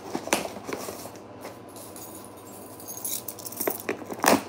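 A cardboard mailing box being handled and scratched at while it is opened: rustling with scattered small clicks. Keys jingle against it near the end, and a sharp knock comes just before the end.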